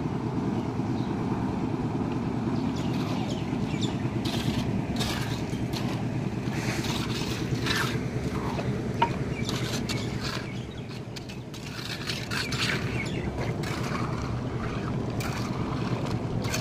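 Concrete mixer's engine running steadily, dipping briefly a little past the middle, with scattered scrapes and knocks over it.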